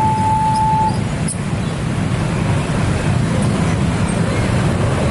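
Railway level-crossing warning alarm sounding a steady high tone for about the first second, then giving way to the loud, steady rumble and rush of a train passing close by.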